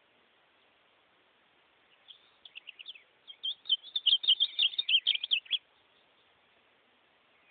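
Ultramarine grosbeak (azulão) singing one quick warbled phrase of about three and a half seconds. It starts about two seconds in with scattered notes and grows louder and denser before stopping abruptly.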